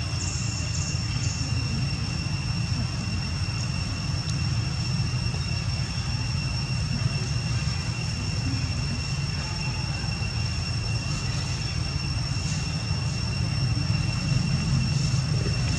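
Steady low outdoor rumble with a constant thin high-pitched whine over it; no animal calls stand out.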